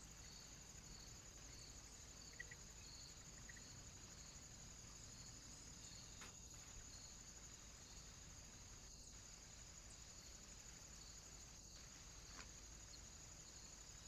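Near silence: a faint, steady high-pitched whine with a soft regular pulsing, and a few faint ticks.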